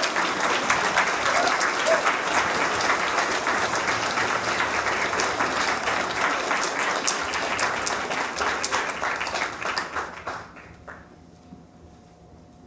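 Audience applauding in a concert hall, the clapping dying away about ten seconds in.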